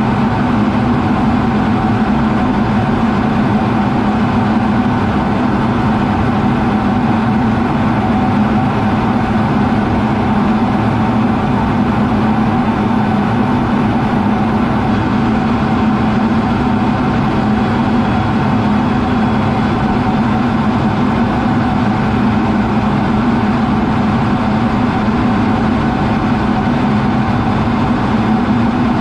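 Steady in-flight noise inside an F-16 fighter's cockpit: the jet engine and the air rushing over the canopy make a continuous, even drone with a strong low hum and a few faint steady tones above it.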